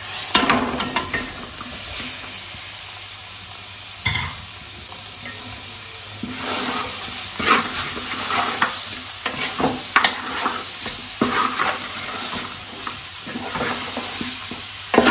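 Raw chicken pieces sizzling as they go into hot oil and fried masala in an aluminium pot, with a sharp knock about four seconds in. The sizzling grows louder and busier from about six seconds in as the pieces are turned over by hand.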